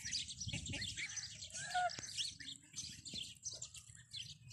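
Goslings peeping continuously in many short high chirps, with a brief lower call from an adult domestic goose about halfway through.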